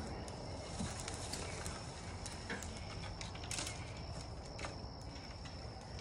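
Quiet outdoor background: a steady low rumble and a thin, steady high-pitched tone, with scattered light clicks and knocks.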